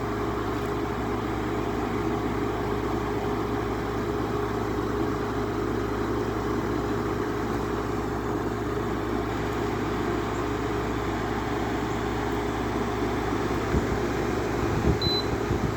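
8000 BTU window air conditioner running with its compressor on and its fan on high: a steady hum under an even rush of air. A few low bumps come near the end.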